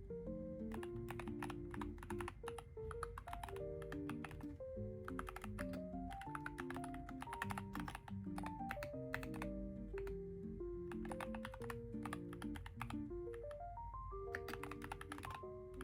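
Typing on a Keychron HE magnetic-switch keyboard: a quick, irregular stream of keystroke clicks. Gentle background music with stepping melody notes and rising runs plays underneath.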